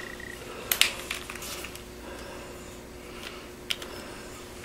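A few sharp light clicks and taps of small parts and tools being handled, the loudest about a second in and another near the end, over a faint steady hum.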